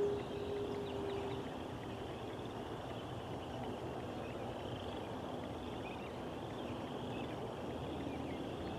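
Steady outdoor background rumble with scattered faint high chirps throughout. A steady tone is heard at the start and fades away within the first second or two.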